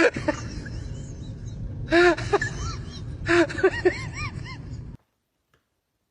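Cat meowing: several short calls that rise and fall in pitch, one at the start, a pair about two seconds in and a quick run of three or four near the four-second mark.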